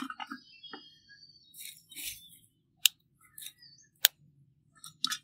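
Fingers picking through dry loose-leaf tea and dried herb pieces in a glass bowl: brief papery rustles, with two sharp clicks about three and four seconds in.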